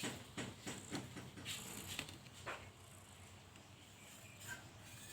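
A quick run of soft taps, about three or four a second, that stops about two and a half seconds in, followed by a brief faint squeak near the end.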